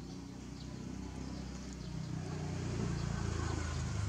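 Low engine rumble of a passing vehicle, swelling to its loudest near the end.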